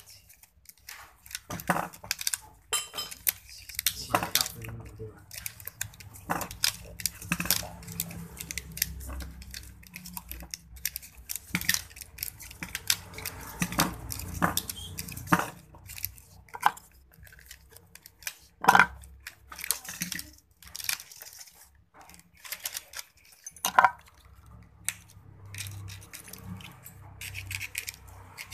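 Irregular small metallic clicks, taps and rattles from handling a motor armature while copper winding wire is laid by hand into its slots, with a few louder clicks about 19 and 24 seconds in.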